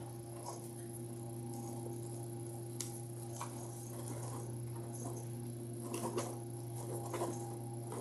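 Faint scattered clicks and rustles of a cardboard cake-mix box being handled and opened, over a steady low electrical hum.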